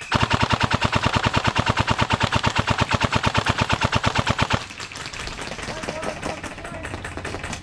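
Airsoft electric rifle firing one long full-auto burst of about ten shots a second, which stops about four and a half seconds in. Fainter rapid shots from further off continue after it.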